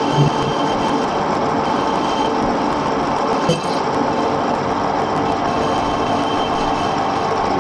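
Edgwick metal-turning lathe running steadily, with its gear whine, as it turns a brake anchor peg in the chuck. There are short knocks just after the start and about three and a half seconds in.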